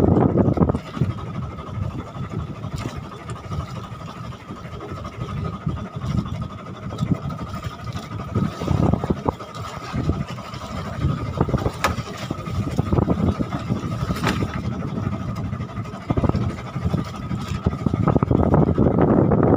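Wind buffeting the microphone over the rush of sea water around a small boat, coming in uneven gusts, heaviest at the start and near the end. A faint steady whine runs underneath, and a few sharp clicks stand out.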